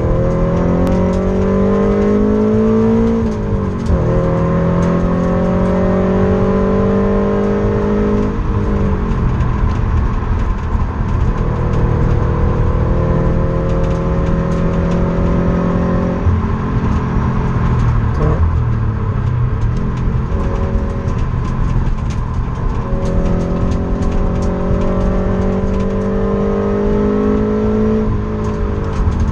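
A manual sports car's engine under hard acceleration, heard from inside the cabin. The pitch climbs through the gears, with upshifts about 3 and 8 seconds in, holds and falls away through the middle, then climbs again with another shift near the end.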